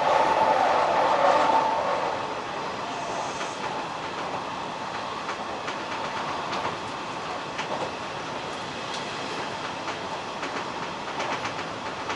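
Hanshin 1000-series electric commuter train running at speed, heard from the front cab: steady rolling noise with wheels clicking over rail joints. A louder hum fades out about two seconds in.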